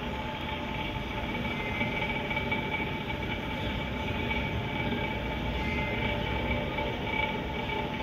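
Steady mechanical hum with a few faint, steady whining tones over it: the running noise of an aquarium rack's pumps and filtration.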